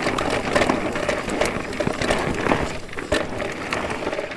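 Mountain bike moving over a rough trail: a steady crunching noise with scattered clicks and knocks.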